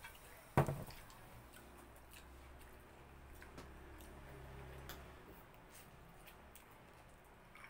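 Quiet eating sounds: faint clicks and wet smacks of fried chicken eaten by hand, with one sharp knock about half a second in.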